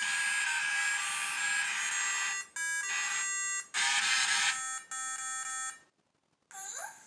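Codey Rocky robot's small built-in speaker playing a buzzy electronic tune. It ends on a few long held notes with short breaks between them, then goes quiet, and a short rising chirp sounds near the end.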